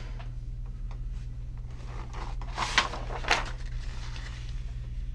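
Steady low electrical hum in a small room. A little past the middle come a few brief rustles, from paper being handled.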